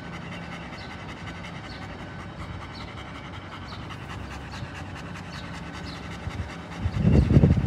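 German Shepherd dogs panting steadily with their tongues out. About seven seconds in, a louder low rumbling noise starts.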